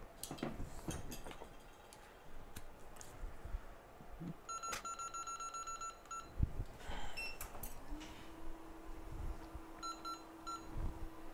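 Rapid electronic beeping from repair-bench equipment in two runs, a longer one about halfway through and a short one near the end, among small clicks of tools. About 8 s in a low hum starts, rising briefly and then holding steady.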